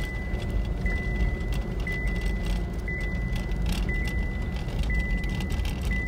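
A car's warning chime beeps about once a second, a high steady tone, heard inside the cabin over the low rumble of the vehicle driving slowly on a rough dirt track.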